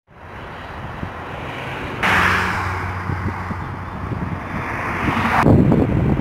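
Highway traffic noise: the tyre hiss and engine hum of passing cars and trucks. A louder stretch starts abruptly about two seconds in and cuts off sharply. A heavy low rumble of wind buffeting the microphone follows near the end.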